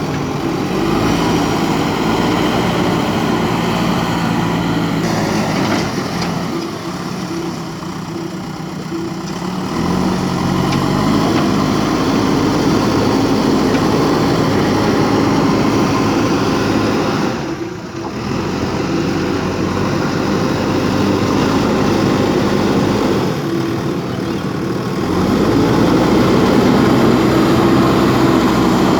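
JCB 3DX backhoe loader's diesel engine running under working load, its pitch and loudness rising and falling as the hydraulics dig and lift, with a brief dip about two thirds of the way through.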